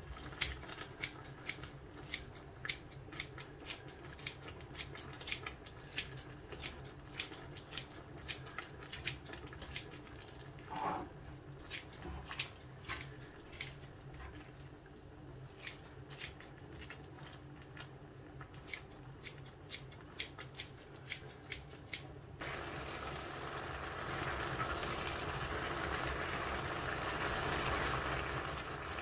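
Kitchen scissors snipping through stewed vegetables and meat strips in a frying pan, with irregular sharp clicks for about twenty seconds. After that the stew simmers in the pan with a steady bubbling hiss.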